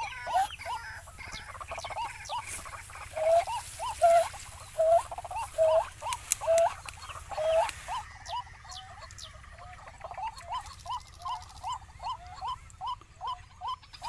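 White-breasted waterhen calling from the undergrowth: a long run of short, harsh, repeated call notes, about two a second, louder in the first half and softer and quicker near the end.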